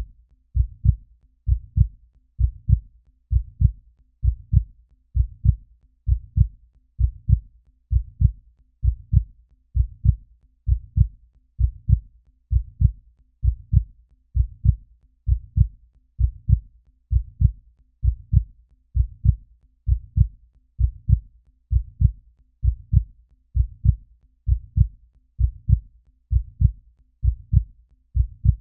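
Human heartbeat sound effect: a steady, even rhythm of low double thuds (lub-dub), a little faster than one beat a second.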